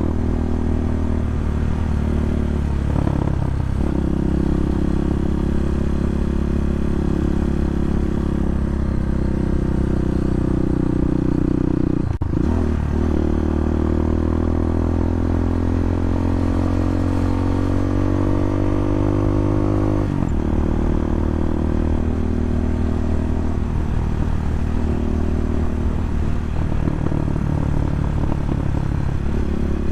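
Bashan 250 dirt bike engine running under load on a climb, a steady engine note that briefly breaks and changes pitch a few times, as between gear changes.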